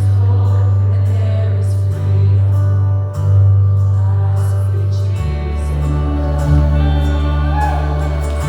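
Live church worship band music: long held low bass notes under sustained chords, with voices singing, the bass note changing about five seconds in.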